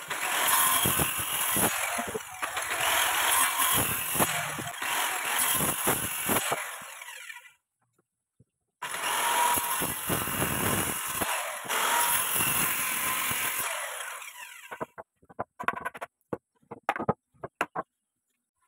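An electric power tool running under load on wood in two long stretches, each starting and stopping abruptly, followed by a string of light irregular knocks near the end.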